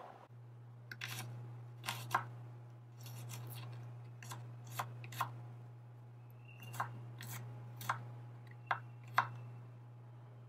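Miniature knife cutting on a small wooden cutting board, first on shrimp and then mincing garlic: about ten sharp clicking taps, many in close pairs. A steady low hum runs underneath.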